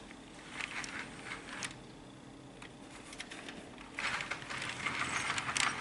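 HO scale model train running slowly on its track, its wheels and couplings clicking and rattling. The clicks are scattered at first, then grow denser and louder about four seconds in.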